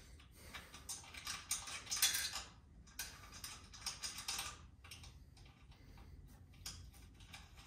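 Small metallic clicks and rattles of nuts being spun on by hand onto a coilover's top-mount studs, in irregular bursts that are busiest in the first few seconds and sparser near the end.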